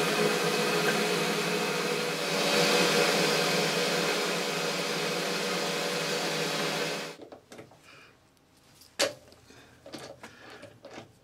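Boxford lathe running with a 5 mm twist drill in the tailstock drilling into the spinning part, a steady motor and drive whine. It stops abruptly about seven seconds in, followed by light metal clicks and one sharp tap as the part is handled in the chuck.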